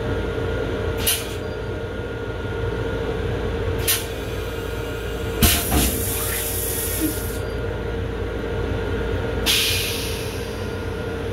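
Stainless-steel toilet in a Long Island Rail Road M7 railcar going through its flush: two brief hisses of rinse water, then a click and about two seconds of rushing water, and a last hiss near the end. Under it runs the railcar's steady hum and low rumble.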